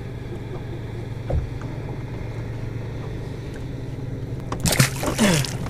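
Bass boat's bow-mounted electric trolling motor humming steadily. A short, louder noisy burst comes about five seconds in.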